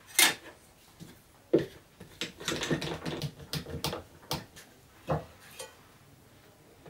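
Workshop handling sounds of one-handed bar clamps being set on a wooden block and thin steel strip on a wooden workbench and tightened with their triggers: two sharp knocks, then a quick run of clicks and rattles, then a few more knocks.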